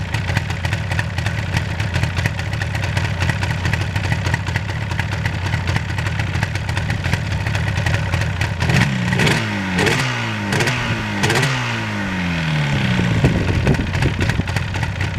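A 1977 Yamaha RD400's two-stroke parallel-twin engine idling steadily, freshly fitted with new ignition coils. About halfway through the throttle is blipped four times in quick succession, each rev rising and falling back, before the engine settles to idle again.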